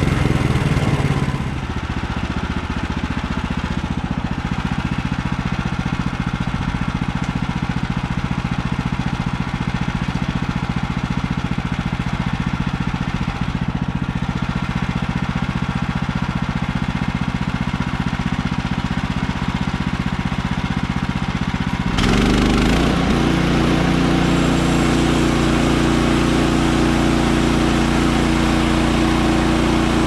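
Woodland Mills HM130Max sawmill's gas engine running steadily, with the blade cutting into the log during the first second or so. About 22 seconds in the engine is throttled up, suddenly louder with a brief rise in pitch, and runs on steadily at the higher speed.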